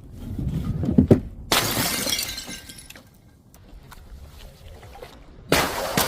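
Glass bottles shattering twice, about four seconds apart, each a sudden crash that dies away over about a second. A couple of dull knocks come just before the first crash.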